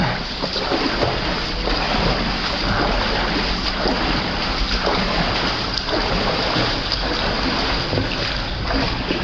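Steady loud rush of fast-flowing floodwater in a river cave, with scattered splashes from people moving in the water.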